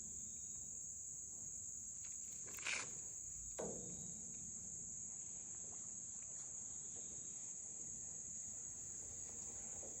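Steady high-pitched chorus of insects, with two short handling sounds close together about three seconds in.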